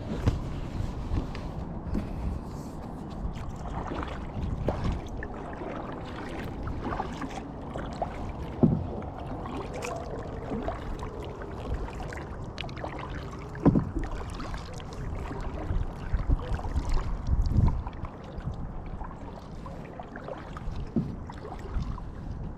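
Kayak being paddled: paddle strokes in the water, with a few sharp knocks along the way.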